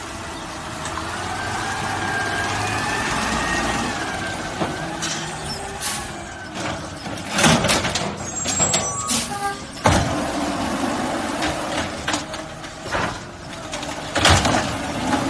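Garbage truck at work: a whine from the engine and hydraulics rises and falls in pitch over the first few seconds. It is followed by a series of loud bangs and clatter.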